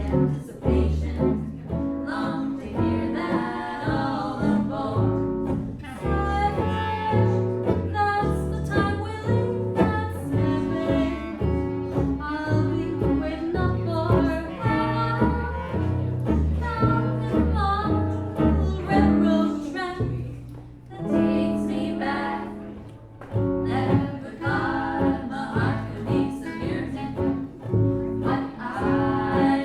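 Live band playing a slow song, with a bass line of low notes under a sung melody.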